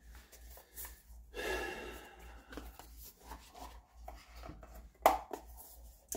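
Quiet handling sounds: a short rustle, scattered light knocks, and one sharper click about five seconds in.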